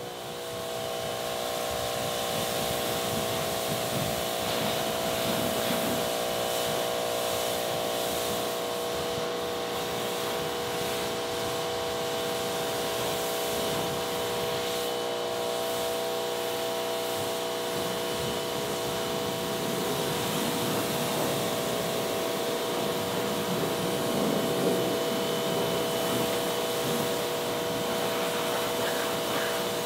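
Pressure washer running with a steady motor hum while its jet of water hisses against a car's paintwork and wheel. The sound fades in at the start, then holds steady.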